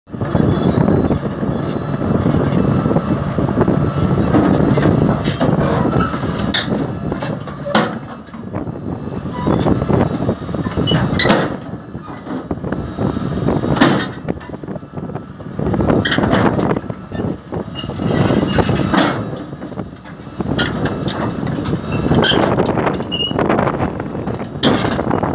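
Komatsu crawler excavator's diesel engine running under load as the machine climbs steel loading ramps onto a lowbed trailer, with repeated clanks and knocks from the steel tracks on the ramps. The engine noise swells and eases several times as the machine moves.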